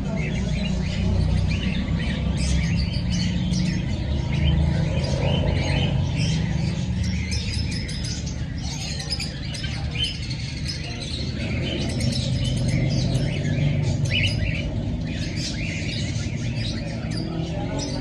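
A roomful of caged small parrots (budgerigars, lovebirds and cockatiels) chirping and squawking all at once in a dense, unbroken chatter, over a low steady rumble.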